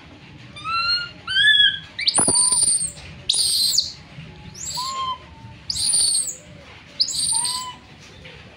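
Baby macaque crying in fear: a string of about seven shrill, arching screams, each under a second long, with shorter, lower-pitched calls between them.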